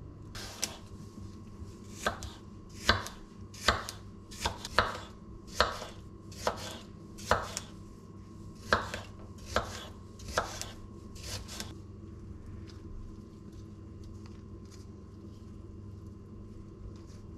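Kitchen knife chopping an apple into chunks on a wooden cutting board: about fifteen sharp knocks of the blade on the board, roughly one every three-quarters of a second. They stop about two-thirds of the way through, leaving only faint ticks over a low steady hum.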